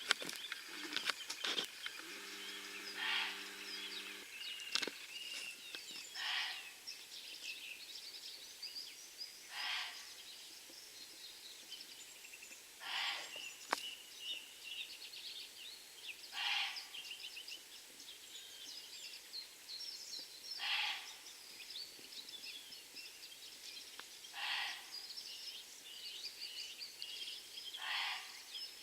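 A strange call from the forest, each about half a second long, repeating steadily about every three and a half seconds, over background bird chirping. A few sharp clicks and a low steady hum sound in the first few seconds.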